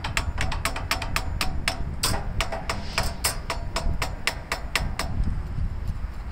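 Quick series of light taps on a Gravely walk-behind tractor's carburetor, about five a second with a brief pause partway, knocking on it to free a float needle stuck by dirt so fuel will flow.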